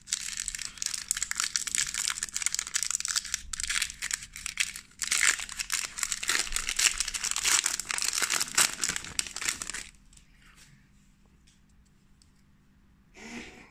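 Foil Magic: The Gathering booster pack wrapper being torn open and crinkled by hand: a dense, crackly rustle that stops about ten seconds in.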